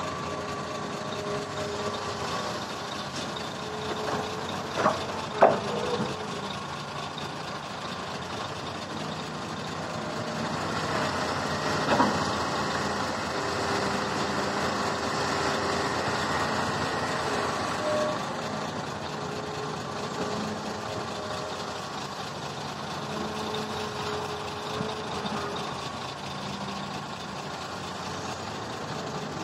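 Hitachi Zaxis ZX350-5G hydraulic excavator's diesel engine and hydraulics running under load as it digs dirt and swings the bucket, the pitch rising and falling with the work. Sharp knocks around five seconds in and again about twelve seconds in.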